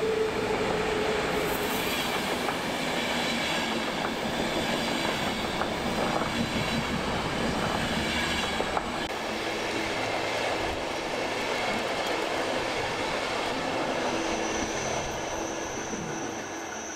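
Electric-hauled passenger train passing close by: steady rolling noise of coach wheels on the rails with clickety-clack over the joints, and a high wheel squeal on the curve near the end.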